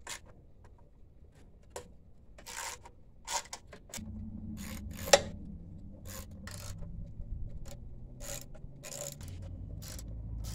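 Hand ratchet clicking in short bursts as the side-cover bolts of a Predator 224cc small engine are loosened, with one sharp metallic click about five seconds in. A low steady rumble sits underneath from about four seconds in.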